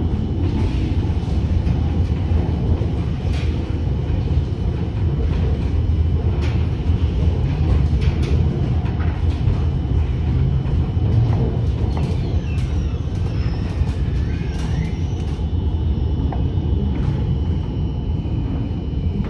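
Rotterdam RET tram under way: a steady low rumble of wheels on rails, with scattered clicks and knocks from the track and the car.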